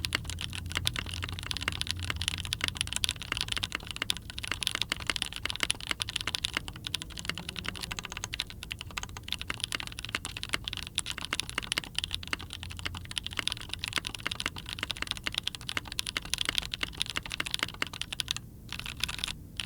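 Typing on a mechanical keyboard with factory-lubed Gateron Blizzard tactile switches in an aluminium plate with plate foam, under Cherry Milkshake keycaps. The keystrokes come fast and continuous, with a couple of brief pauses near the end.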